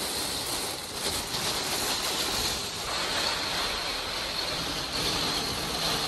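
Strong wind with heavy rain: a steady rushing noise that swells and eases a little.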